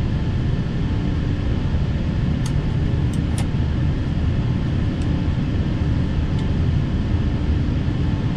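Steady rushing noise with a low hum inside the flight deck of an Airbus A380 climbing after takeoff, with a few faint clicks a few seconds in.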